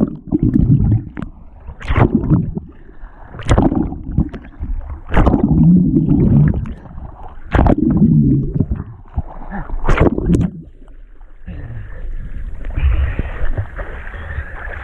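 Swimming strokes in lake water heard through an underwater camera: muffled sloshing and rumble with a splashing surge about every two seconds as the arms pull through. Near the end the surges stop and the sound turns to a steadier hiss as the camera comes out of the water.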